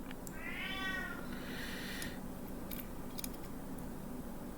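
A cat meowing once: a single call of about a second that rises and then falls in pitch.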